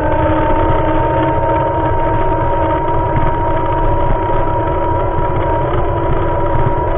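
Engine of a moving road vehicle running at a steady speed, a hum whose pitch creeps slightly upward, over rumbling wind and road noise.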